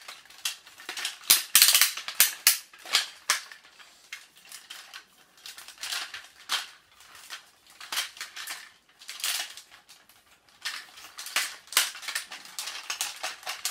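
Plastic joints of a 1990s Playmates Veritech Hovertank action figure clicking as its limbs and parts are moved: a long irregular run of sharp clicks, several a second, densest and loudest in the first few seconds. The joints are still tight and clicky.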